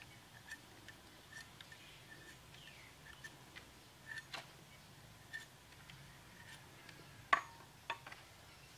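Faint scattered clicks and ticks of bamboo skewers and strips being handled as pig intestine is threaded onto them, with a sharper click about seven seconds in and another just after.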